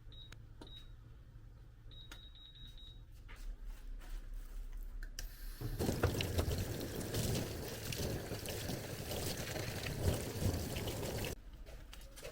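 A few short electronic beeps, then liquid pouring or water running for about five and a half seconds before stopping abruptly.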